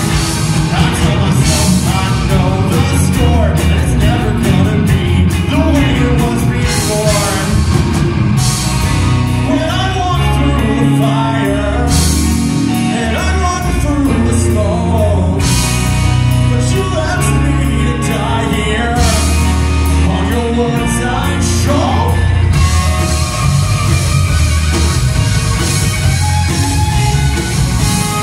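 Live rock band playing a song: electric guitars, bass and drum kit under a male lead vocal. The singing drops out about twenty-two seconds in, leaving the band playing on.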